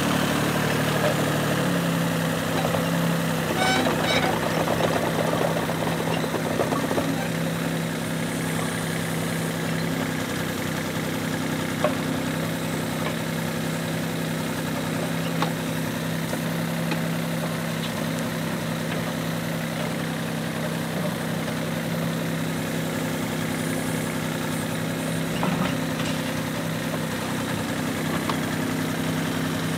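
Yuchai YC15-7 mini excavator's diesel engine running steadily while the machine digs, its note shifting slightly about two seconds in, with a few single knocks.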